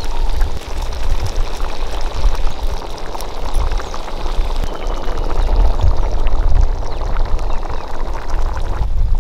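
Snake gourd and lentil kootu bubbling and popping steadily in a large aluminium pot over a wood fire, a dense patter of small bubble pops, with a low rumble underneath.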